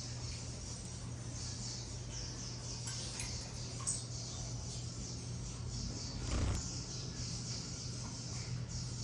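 Small cage birds giving faint, rapid high chirps over a steady low hum, with a soft thump about six and a half seconds in.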